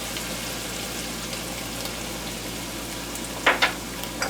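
A hot pan of fajita filling sizzling steadily after water has been added. Two quick sharp clicks come about three and a half seconds in, and a smaller one near the end.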